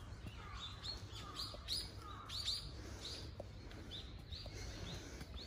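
Small birds chirping in a run of short, high notes that each drop in pitch, two or three a second, over a low steady rumble.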